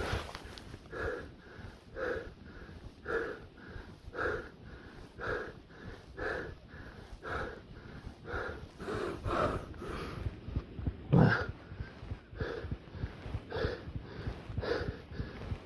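A man breathing heavily and wheezing, out of breath after running, about one breath a second with a louder one about eleven seconds in.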